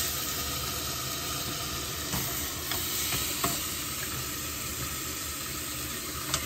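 Meat chops sizzling steadily as they brown in hot oil in a stainless steel pot, with a few sharp clicks of metal tongs handling the meat.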